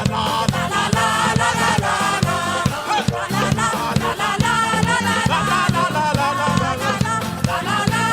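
Live gospel band and singers performing an upbeat worship song, group voices over a steady drum beat and bass.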